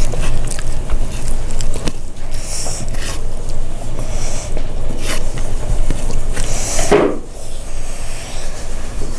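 Close-up eating sounds, a person chewing and biting food with scattered short crunches and smacks, the longest a little before the end. A steady low hum runs underneath.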